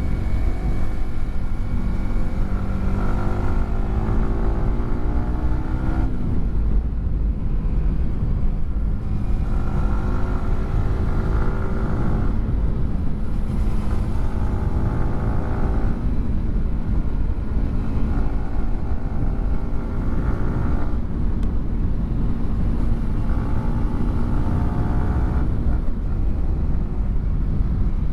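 Yamaha R15 M's single-cylinder engine through a WRX GP3 aftermarket exhaust, accelerating through the gears: the pitch climbs over a few seconds and drops at each shift, several times over, under a steady rush of wind.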